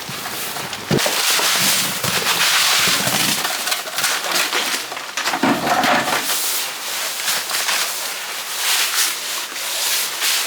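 Sand being shovelled and spread over a plastic membrane liner as a base for hearth stones: irregular gritty scrapes and knocks.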